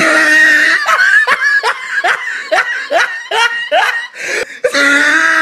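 Loud laughter: a rapid run of short 'ha' bursts, about three a second, each rising slightly in pitch, with a denser, noisier stretch at the start and again near the end.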